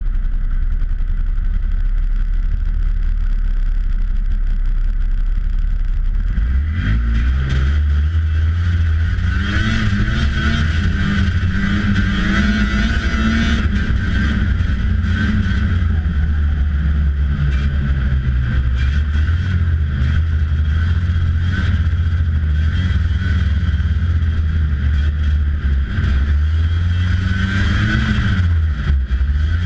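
1992 Polaris Indy Lite 340 snowmobile's two-stroke engine, idling with a steady low note, then revving up about seven seconds in as the sled pulls away. While riding, its pitch rises and falls with the throttle.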